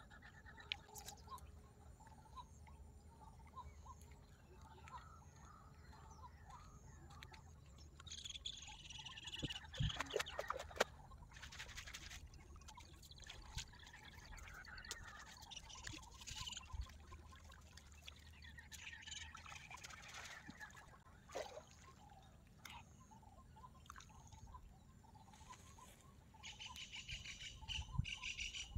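Faint outdoor ambience: birds chirping on and off over a low steady rumble, with a few short knocks and rustles, the loudest about ten seconds in.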